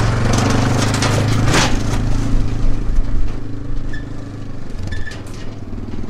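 Diesel engine of a site dumper running close by with a steady low drone, with clanks and rattles over it. A few short high beeps come in the second half.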